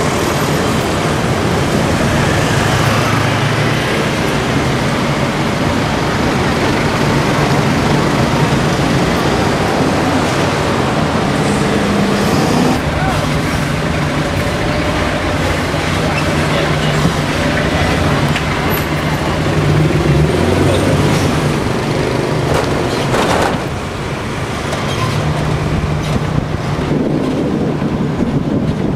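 Street traffic noise: a steady engine hum and road noise with voices mixed in, the level dipping briefly a little past two-thirds through.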